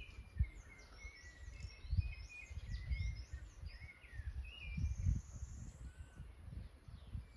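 Several songbirds chirping and calling in short, quick, arching notes, with gusts of wind rumbling on the microphone.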